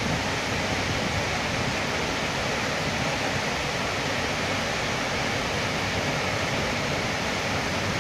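Steady rushing of floodwater across a street, an even noise that holds at one level.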